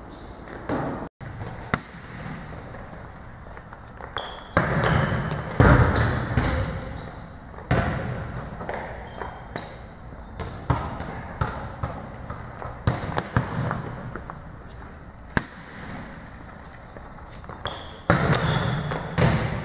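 Volleyball serves in a large gym: sharp slaps of a hand striking the ball and the ball hitting the court floor, repeated many times at irregular intervals.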